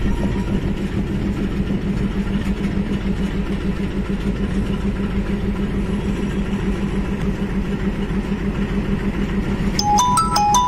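Diesel locomotive hauling a ballast train slowly past, its engine running with a steady low hum over the rumble of the wagons on the track. Near the end a short electronic chime tune of a few stepped notes sounds over it.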